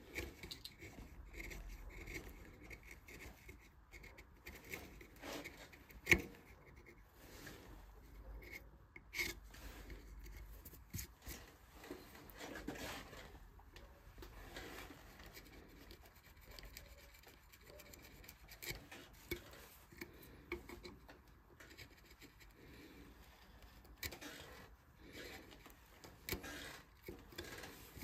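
Hand carving tools cutting and scraping into wood in short, irregular strokes, with a sharp click about six seconds in.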